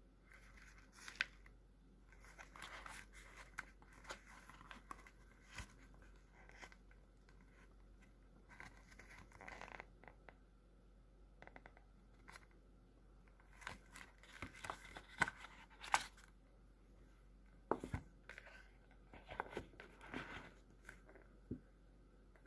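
Faint handling noises as a leather bifold wallet and its paper insert and tag are opened and turned over: scattered rustling with sharp clicks and taps now and then, more of them past the middle.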